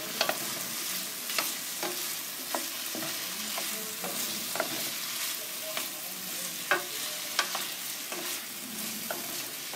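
Julienned vegetables sizzling in a stainless-steel skillet as a wooden spoon stirs and tosses them, with a steady hiss and irregular light knocks of the spoon against the pan.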